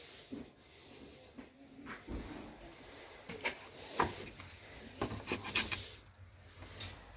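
Handling noise from a handheld camera being swung around close to shelves: rubbing and brushing with a few scattered light knocks.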